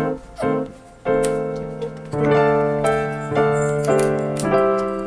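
Background keyboard music: piano chords struck one after another, about once a second, each ringing and fading.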